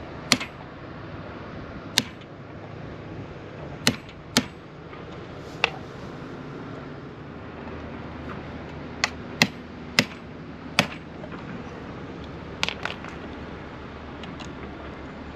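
Sharp, irregularly spaced taps and knocks, about a dozen, of a hand tool digging out the teak plugs that cover the screw heads in an old teak hatch trim.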